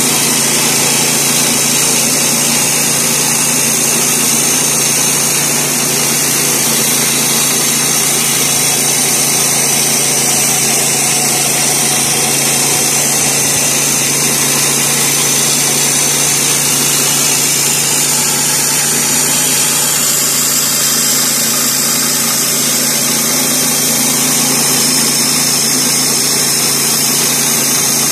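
Woodland Mills HM122 portable bandsaw mill's 7 hp engine running steadily under load as its band blade saws lengthwise through a sycamore log, with an even pitch.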